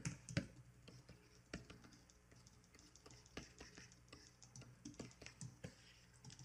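Faint, irregular clicks of computer keyboard keys being pressed.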